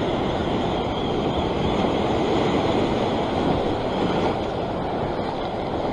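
Ocean surf washing and foaming over a rock ledge, a steady rush of water.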